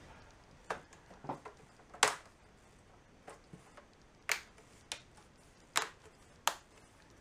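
Irregular light clicks and taps, the sharpest about two seconds in, as hands set and press down the plastic LCD frame of a Samsung LED TV over its backlight sheets.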